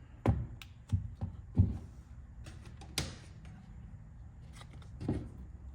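A handful of short, sharp knocks and clicks, irregularly spaced, as a small Traxxas Velineon 3500 brushless RC motor is handled and knocked about on a workbench, over a faint steady low hum.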